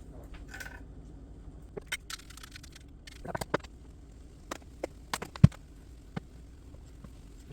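Scattered clicks and knocks of kitchen utensils against a bowl and countertop while sauce ingredients are added, with one sharp knock about five and a half seconds in, the loudest.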